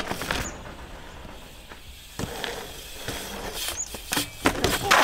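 A BMX bike riding dirt jumps: tyres rolling over packed dirt with a few knocks, and a louder rush of noise near the end.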